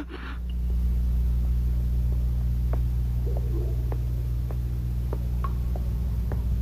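Cave ambience: a low, steady hum, with faint water drips falling at irregular intervals, about one a second.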